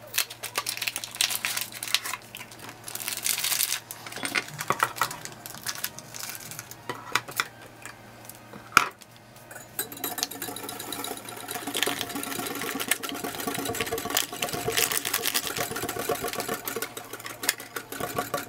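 Wire whisk beating milk and instant pudding mix in a glass Pyrex measuring cup: its wires rapidly click and scrape against the glass in a steady rhythm, with one sharper clink just under nine seconds in.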